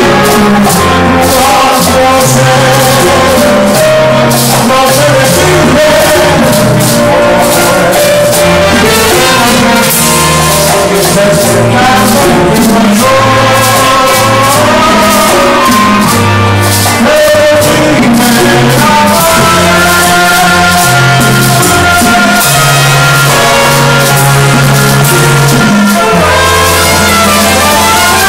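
Live Latin dance band playing: timbales and other percussion, an upright bass and a trumpet, with a woman singing. The sound is loud and distorted, as from an overloaded phone microphone.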